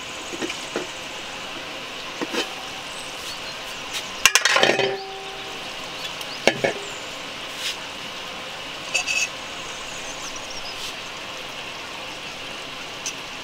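Metal cookware clinking: an aluminium pot and its lid handled, and a spoon tapping against the pot and a steel plate while fish curry is served, over a steady hiss. The loudest is a ringing clatter about four seconds in.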